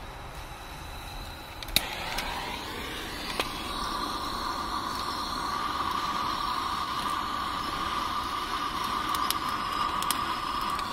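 Utility lighter clicking as it is sparked at a charcoal gasifier's air inlet, over the steady rush of the startup fan pulling air through. From about three seconds in, a steady whistling hiss joins as the lit flame is drawn into the inlet by the fan's suction.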